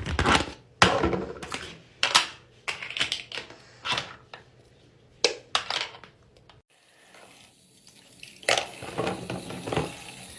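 Simple dimple fidget toys (plastic frames with silicone push buttons) being handled and put into a tub of soapy wash water: a string of sharp plastic clacks and knocks with short gaps, breaking off suddenly partway through, then more clatter near the end.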